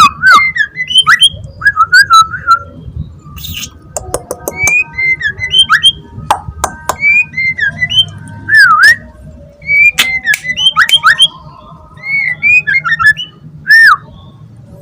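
Young wild-caught white-rumped shama singing in rapid bursts of clear whistled phrases that swoop up and down, mixed with sharp clicks.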